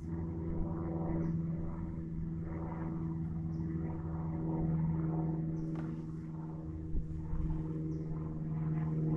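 Boat motor running with a steady hum that holds one pitch, with a single soft knock about seven seconds in.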